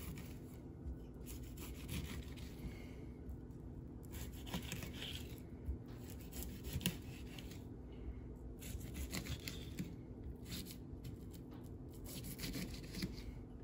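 Kitchen knife scoring the skin of whole kole (goldring surgeonfish) on a bamboo cutting board: short scraping, slicing strokes in irregular clusters, over a faint low hum.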